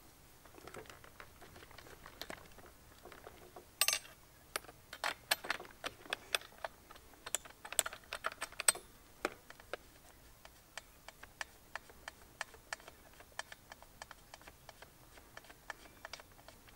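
Small metallic clicks and taps of a socket tool working on the spark plug of a Baja 5B's two-stroke engine as the plug is loosened for removal. They are scattered at first, then settle into a fairly even run of about three clicks a second in the second half.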